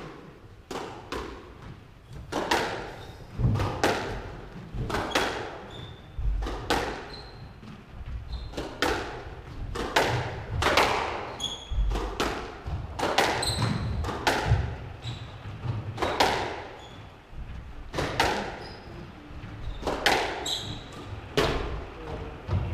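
Squash rally: the ball cracking off rackets and the court walls again and again, one hit every half second to a second, each echoing in the enclosed court. Short high squeaks of shoes on the wooden floor fall between the hits.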